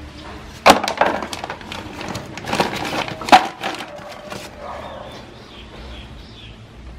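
Clear plastic bag crinkling as rubber toys are pulled out of it: a run of sharp crackles, loudest just under a second in and again past three seconds, then dying away.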